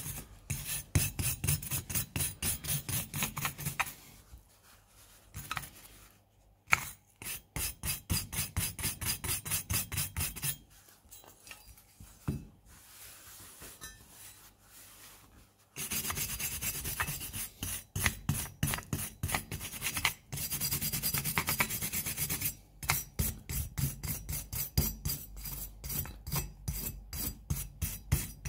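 Stiff hand brush scrubbing rust off the steel grip frame of a Luger P08 pistol in quick back-and-forth strokes, several a second. The strokes soften for a few seconds in the middle, then come back hard.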